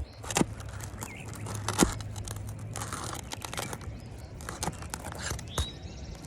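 Flat scraper blade working under asphalt roof shingles to free the nails: a run of sharp metal clicks and knocks, with a stretch of scraping and crackling about three seconds in. Two clicks, shortly after the start and about two seconds in, are the loudest.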